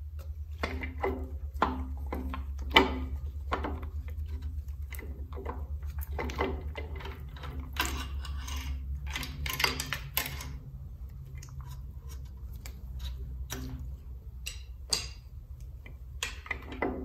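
Metal clinking and rattling from hand work on a stripped Jaguar V12 block: the loose timing chain and hand tools knocking against the front of the engine, many irregular clinks, some ringing briefly. A steady low hum runs underneath.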